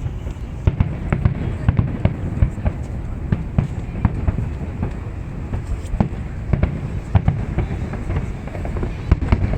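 Fireworks display going off: a dense run of irregular bangs and crackles over a continuous low rumble of bursts.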